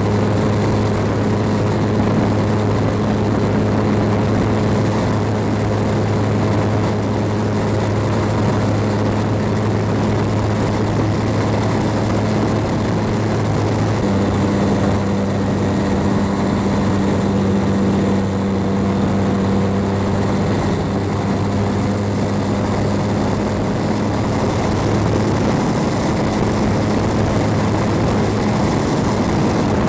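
Small fixed-wing drone's propeller motor, heard from a camera on the aircraft, running at a steady hum over the rush of air in flight. The hum's pitch shifts slightly about halfway through.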